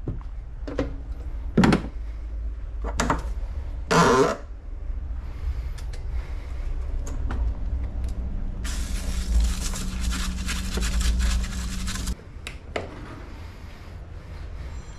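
Workshop tool and parts handling: several knocks and clicks, then a steady whirring hiss for about three and a half seconds that cuts off abruptly.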